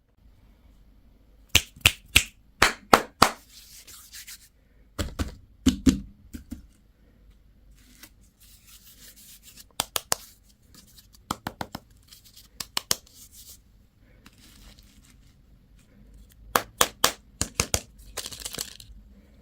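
Plastic candy and toy packaging being handled and torn open: several clusters of sharp crackles and snaps, with softer rustling between them.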